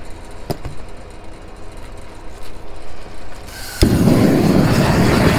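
Raptor propane roofing torch catching suddenly about four seconds in, then burning with a loud, steady roar. A couple of sharp clicks come in the first second before it.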